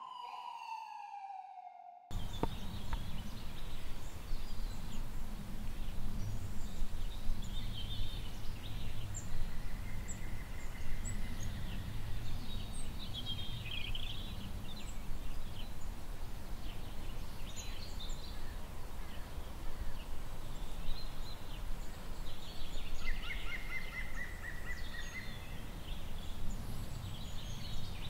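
Outdoor background noise with a steady low rumble and birds chirping, including a couple of short trilling calls. It opens with a falling whistle-like tone that cuts off about two seconds in.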